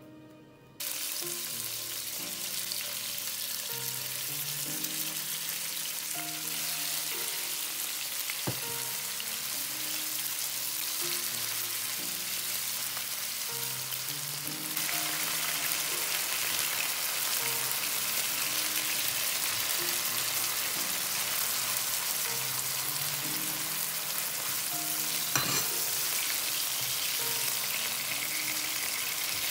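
Chicken breast pieces, and later chopped onion, sizzling in hot oil in a nonstick frying pan while being stirred with a spatula. The sizzle starts suddenly about a second in and grows louder about halfway through, with two sharp knocks along the way.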